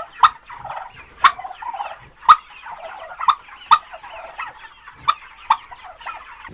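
A flock of poultry calling: a constant chatter of clucks, with about seven louder, sharp calls breaking out over it at irregular intervals.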